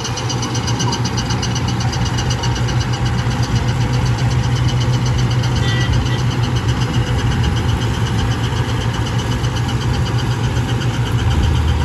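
Tractor diesel engine running steadily at speed, driving a tractor-mounted straw reaper, with a fast, even rattle of the machine over the engine's hum.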